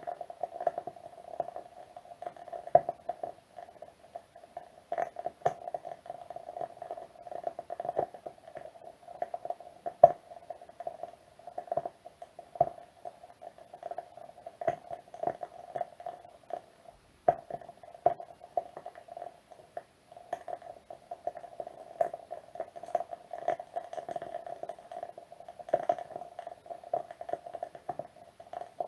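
Wood wick candle burning with a soft, continuous crackle of tiny rapid clicks, broken by occasional louder pops, the sharpest about three seconds and ten seconds in.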